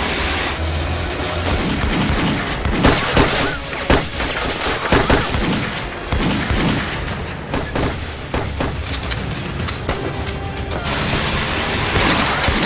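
Rifle gunfire and booming explosions over dramatic background music, as a battle sound effect: a rapid run of shots and booms starts about two seconds in and continues, with a brief lull near the end before more shots.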